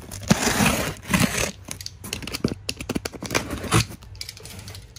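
Handling noise from the camera being picked up and repositioned: fingers rubbing and knocking on the camera body near the microphone, with loud rustles in the first second and a half and scattered clicks and knocks after.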